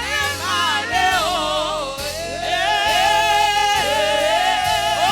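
Gospel singing with instrumental accompaniment: a voice holding long, wavering notes over a steady bass.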